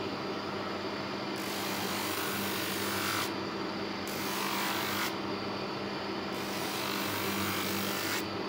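Homemade plywood spindle drum sander running with a steady motor hum. A small piece of wood is pressed against the spinning sanding drum three times, each contact adding a coarse sanding hiss.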